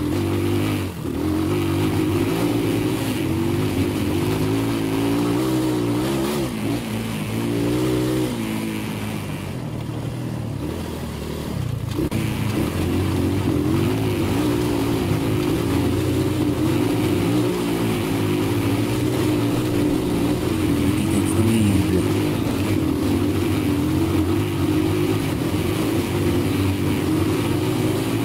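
Motorcycle engines running and revving, their pitch rising and falling with the throttle.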